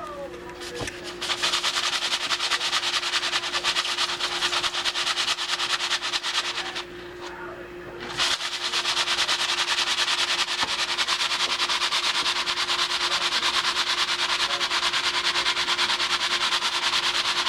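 Jiffy Pop foil pan being shaken on a stove burner: a fast, steady rattling hiss of kernels and oil. It starts suddenly, pauses briefly midway, then resumes and stops suddenly.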